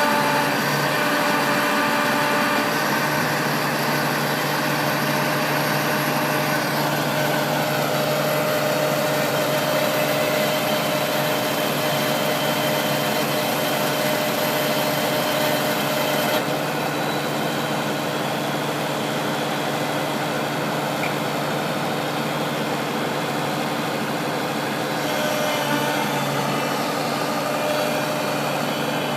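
New Holland TV-140 tractor's diesel engine running steadily under the backhoe work, with a higher whine that falls in pitch about a quarter of the way in.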